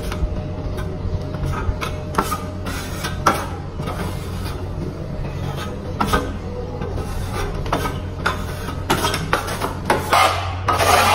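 Steel plastering trowel scraping skim coat across a wall in repeated irregular strokes, over a steady low hum.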